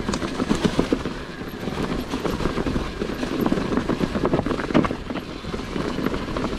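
Mountain bike rattling and clattering over rough, stony trail ground, tyres crunching, in a dense run of irregular knocks.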